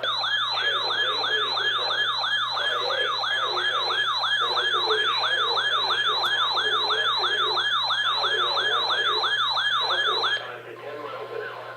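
Electronic siren alert tone, a rapid yelping sweep that rises and falls about two and a half times a second, stopping abruptly near the end.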